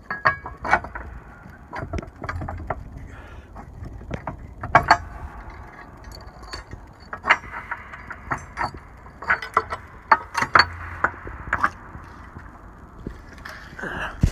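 A run of irregular sharp clicks and knocks, with stretches of scraping between them, from something mechanical being handled.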